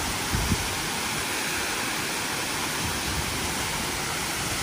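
Roadside waterfall rushing: a steady, even roar of falling water, with two soft low bumps about half a second in.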